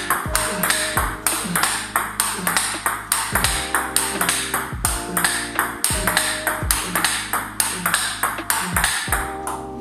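Table tennis ball in a forehand-drive rally: quick repeated clicks as the ball strikes the Tibhar Hybrid K3 rubber and bounces on the table, several a second.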